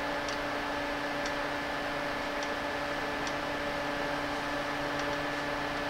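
Steady electrical hum with a faint hiss at a soldering bench, with faint, irregular ticks about once a second as a soldering iron tins the pads of an RGB LED strip.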